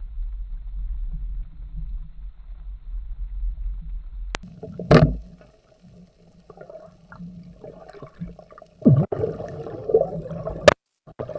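Underwater low rumbling water noise, then a sharp, loud snap about five seconds in as a band-powered speargun is fired. Gurgling, bubbling water follows, with a couple more sharp knocks near the end.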